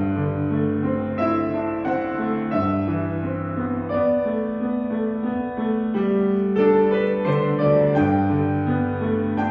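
Slow prelude music on a keyboard instrument: held chords that change every second or two over a sustained bass line.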